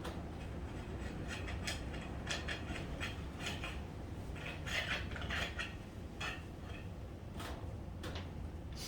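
Scattered light metallic clinks, taps and scrapes of hand tools and motorcycle fork parts being handled, over a low steady hum.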